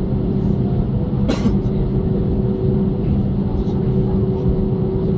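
Boeing 737 airliner cabin noise while taxiing: the jet engines run at low power as a steady low rumble with a steady hum over it. One sharp click about a second in.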